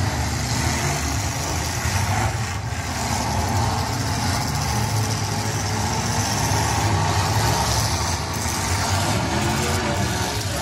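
Engines of several demolition derby cars running together in the arena, a steady low rumble.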